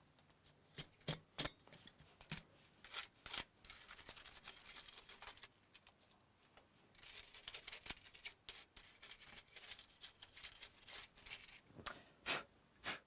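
A few light clicks as metal disc-drive parts are handled, then a small stiff brush scrubbing dust off a PS4 disc drive's parts in two spells of quick, scratchy strokes, with a couple of taps near the end.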